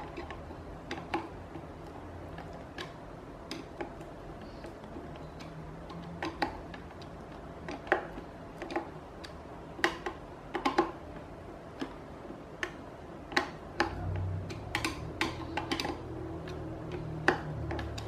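Irregular small clicks and ticks of a Phillips screwdriver tightening screws into the plastic motor bracket of an electric fan, with a low rumble of handling near the end.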